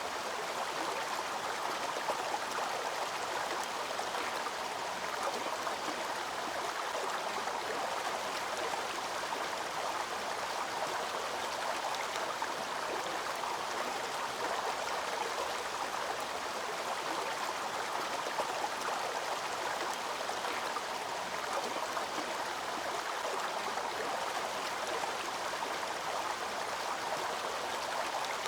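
Waterfall pouring, a steady, even rush of water with no change in level.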